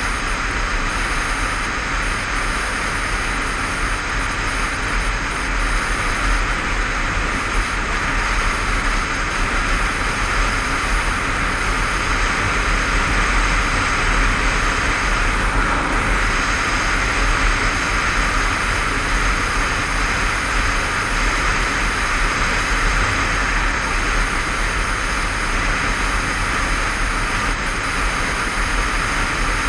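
A motorcycle cruising at steady speed: constant wind rush on a helmet-mounted camera's microphone over the engine and road noise, with no change in pace.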